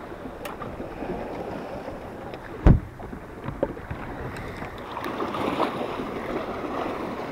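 Water lapping and wind around a small fishing boat, with a single loud knock on the boat about two and a half seconds in and a few faint ticks.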